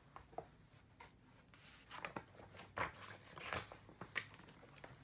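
Pages of a large hardcover picture book being turned and handled: faint paper rustling and rubbing with small taps, busiest in the middle.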